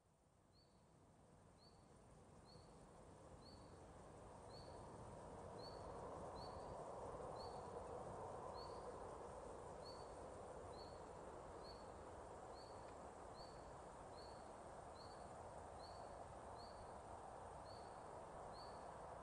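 Distant train approaching: a low rumble that swells over the first several seconds and then holds steady. A short high chirp repeats about once a second over it.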